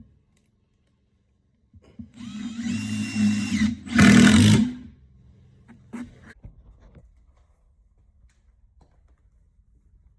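Cordless drill-driver running in two short runs, the second shorter and louder, typical of driving a screw into the new subfloor panel, with a brief blip a moment later.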